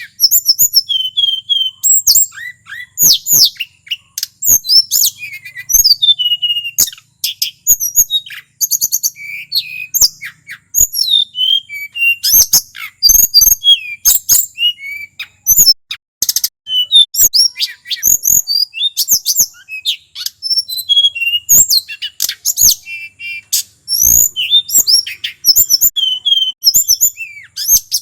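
Male hill blue flycatcher (tledekan gunung) singing non-stop: fast, varied high whistled phrases that sweep up and down, broken by many sharp clicks.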